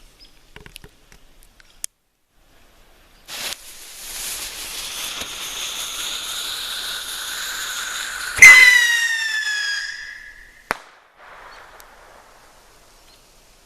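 Bottle rocket (a Windmill Texas Pop Rocket) launching with a hiss about three seconds in and hissing through its flight, then a sharp, loud pop about eight seconds in. A high whistling tone follows the pop, sagging slightly in pitch for about two seconds, and a second short crack comes near eleven seconds.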